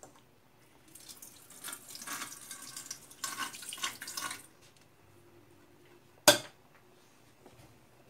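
Water running for about three and a half seconds, then a single sharp knock a couple of seconds later, the loudest sound.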